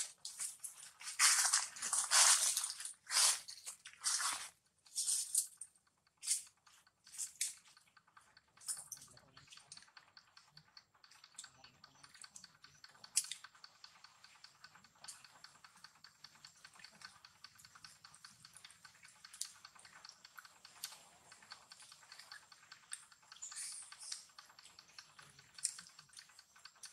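Close rustling and crackling for the first several seconds, then a long run of faint, irregular small clicks, from a mother monkey moving and eating fruit on dry leaves.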